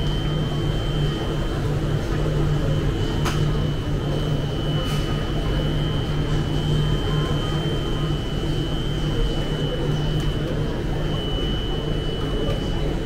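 Supermarket ambience: the steady hum of refrigerated display cases, with a constant high whine, faint background voices and two light clicks about three and five seconds in.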